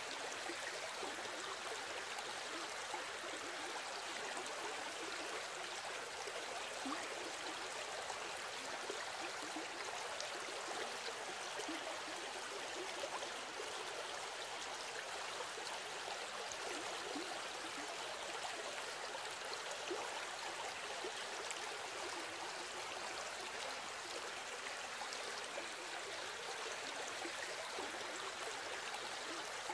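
Running water of a stream, steady and even throughout, with small irregular splashing flickers.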